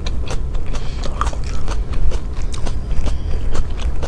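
Close-miked chewing of a mouthful of raw salad, lettuce and vegetables crunching in quick irregular crunches, several a second, over a low steady hum.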